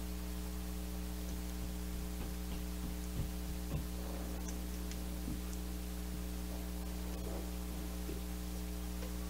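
Steady low electrical mains hum, with two faint clicks a little past three seconds in.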